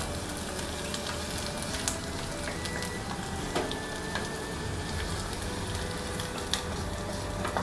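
Hot oil sizzling steadily with fried fermented black beans as they are poured and scraped from a small frying pan into a bowl. A few short clicks come from the pan and spatula knocking the bowl's rim.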